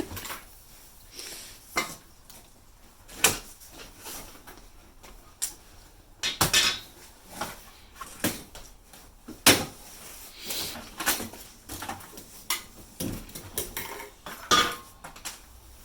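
Loose metal grill parts and hardware knocking and clinking irregularly as they are handled and unpacked, with a few sharper clanks that ring briefly.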